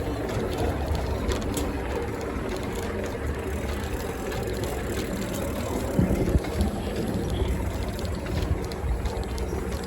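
Bicycle being ridden along a trail: a steady rumble of wind on the microphone and tyre noise, with light rattles and a few sharper knocks about six seconds in.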